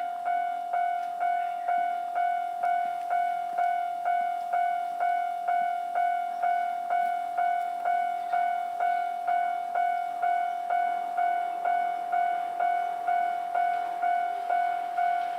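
Japanese railway level-crossing warning bell ringing: one steady high ding repeated evenly at about two strikes a second, each fading before the next. It is the crossing alarm warning of an approaching train.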